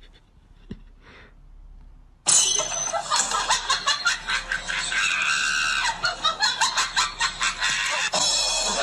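Loud, harsh shrieking starts suddenly about two seconds in and goes on in rapid ragged pulses, with a high squeal in the middle.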